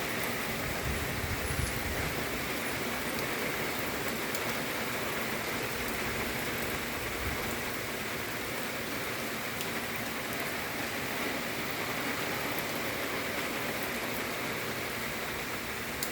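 Heavy rain pouring down, a steady even hiss with faint scattered drop ticks.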